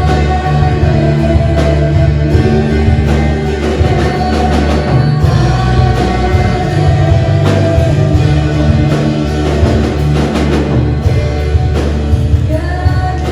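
Worship music from a band: held chords over a heavy steady bass, with drum hits and some singing.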